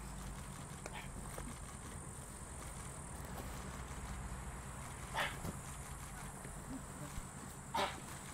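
Two short, loud yelps about two and a half seconds apart, over a steady low hum.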